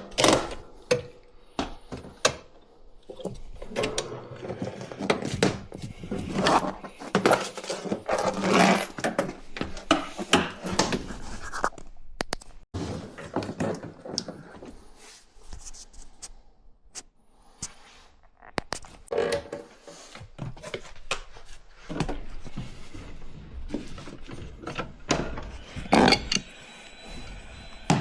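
Irregular clinks, knocks and scrapes of hand tools and metal parts being handled while fitting a dishwasher.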